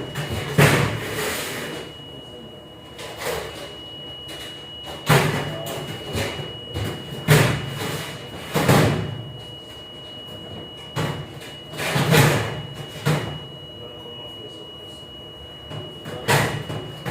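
Irregular knocks and clatter from dishwashing work in a ship's galley, about eight separate bangs over a steady background, with a constant high-pitched tone throughout.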